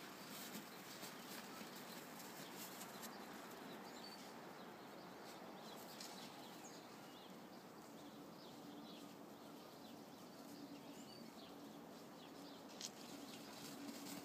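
Faint high squeaks and yips from puppies playing and wrestling in snow, over a quiet hiss.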